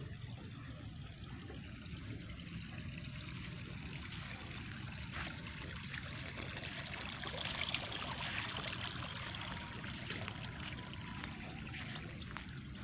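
Water trickling steadily, as in a paddy's irrigation ditch, with a faint high ticking repeating about three times a second; the hiss swells briefly a little past halfway.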